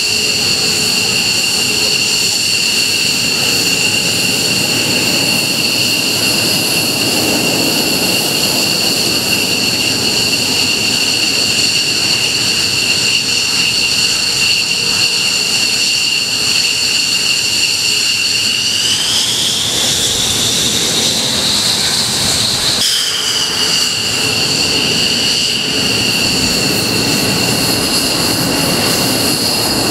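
F-15J Eagle's twin Pratt & Whitney F100 turbofans running at ground idle with a steady high whine. About two-thirds of the way in, the whine rises in pitch as the engines spool up, then falls back suddenly to the idle tone.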